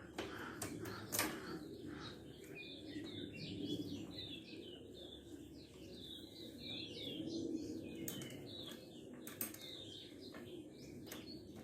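Small birds chirping and twittering continuously, with a few sharp clicks scattered through, one about a second in and others near the end.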